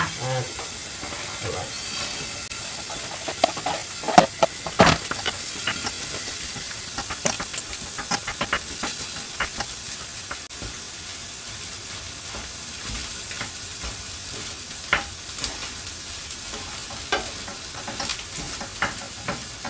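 Day-old rice and egg sizzling in a frying pan, stirred with a wooden spatula that knocks and scrapes against the pan at irregular moments.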